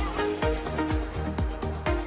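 Background music with a steady beat of about two beats a second over held synth-like notes.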